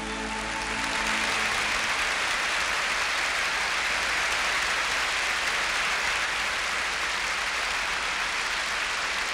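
Large audience applauding steadily, swelling in as the orchestra's last held chord dies away in the first second or so.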